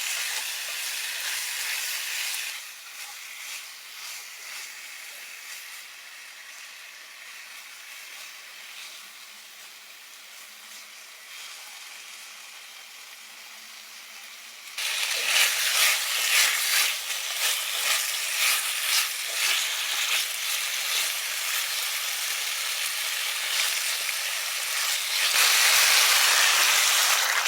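Food sizzling and crackling as it fries in a hot pan. The sizzle eases to a quieter hiss, then jumps suddenly louder with crackling about halfway through, and is loudest near the end.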